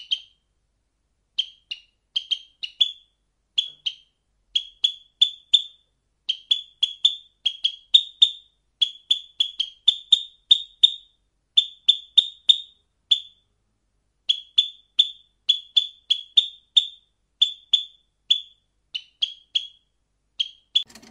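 Sparrows chirping: short, high cheeps repeated two or three a second in irregular runs, with a couple of brief pauses.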